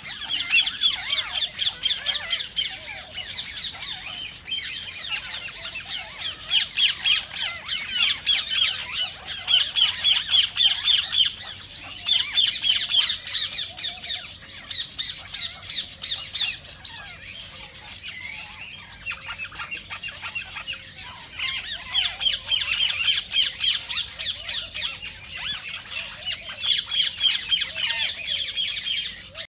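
A flock of rose-ringed (Indian ringneck) parakeets screeching, harsh calls repeated in rapid runs that come and go in bouts.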